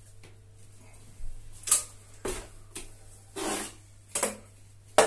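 Steel plastering trowel scraping wet gypsum backing plaster across a metal hawk, cutting and loading it in a series of short scraping strokes.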